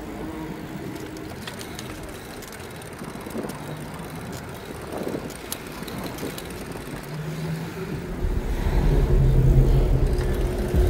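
Street traffic: a motor vehicle's engine grows loud over the last few seconds as it passes close by.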